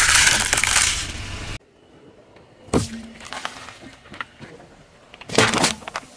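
A car tyre crushing objects. First a loud crackling crunch as a mesh bag of gel water beads is squashed and the beads pop out. Then, after a sudden drop in level, come a sharp knock and a few small cracks, and a loud burst about five seconds in as a drink carton splits under the tyre.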